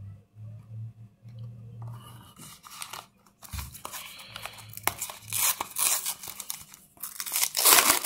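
A Panini sticker packet crinkling in the hands and being torn open, a run of crackling tears that is loudest near the end.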